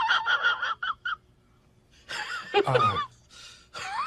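Domestic cat vocalizing: a quick string of short, high meows in the first second, then a longer meow that bends in pitch about two seconds in.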